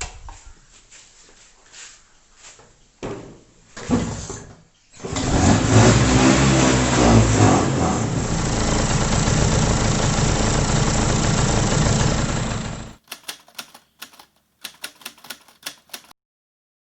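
Bajaj Chetak scooter's single-cylinder two-stroke engine being started: a few knocks, then it catches about five seconds in, revs up and down and settles into a steady run. It cuts off sharply, followed by a run of scattered sharp clicks.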